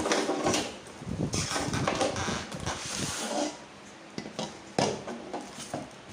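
Parts of a newly unboxed electric multi-griller being handled: a run of light knocks and clatters, with a stretch of rustling in the middle.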